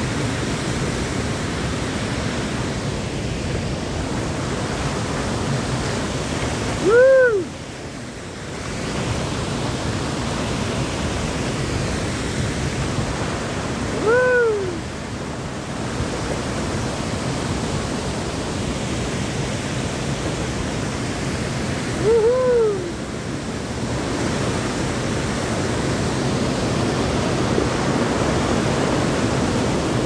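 Steady rush of a fast mountain river and waterfall. Three short tones that rise and fall in pitch come about seven to eight seconds apart and stand out above the water.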